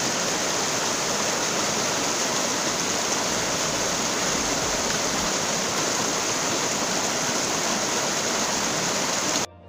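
Small rocky stream rushing and cascading over stones, a steady loud hiss of white water that cuts off abruptly near the end.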